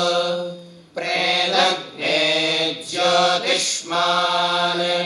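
A group of men chanting a Vedic hymn to Agni in unison, in a steady recitation tone, in short phrases separated by brief pauses for breath.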